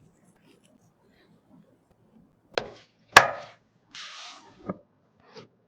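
Computer parts being handled during a PC build: a few sharp clicks and knocks, the loudest about three seconds in, followed by a brief scraping rustle and a duller knock near the end.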